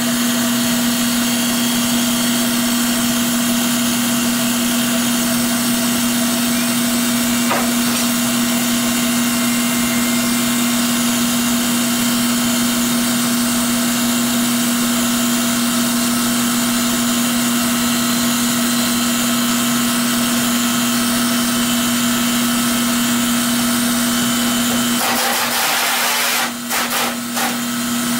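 Steady motor hum with one constant low tone over a hiss, broken by a few short dips a few seconds before the end.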